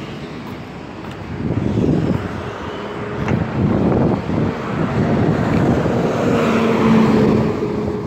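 Road traffic passing close by on a street. Near the end a school bus engine drones as the bus goes by.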